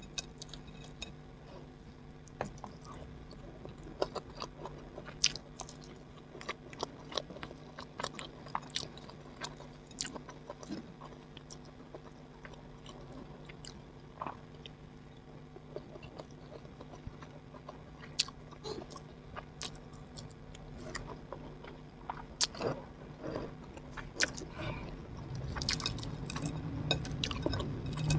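Close-miked chewing and eating mouth sounds: irregular wet clicks, smacks and bites, growing louder over the last few seconds.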